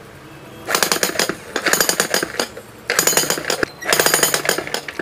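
DYK 16 kg, 2300 W electric demolition hammer driving its chisel bit into a stone block: its rapid blows come in four bursts of just under a second each, starting about a second in.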